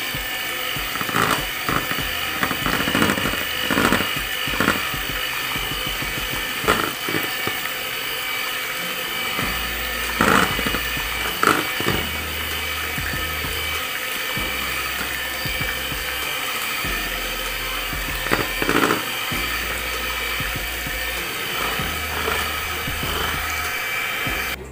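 Electric hand mixer running steadily, its beaters whisking thin pancake batter in a plastic bowl, with short louder clatters now and then.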